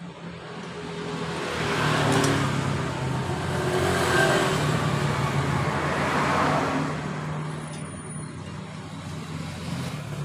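Motor traffic: a steady engine hum with vehicles passing in swells, loudest about two and four seconds in.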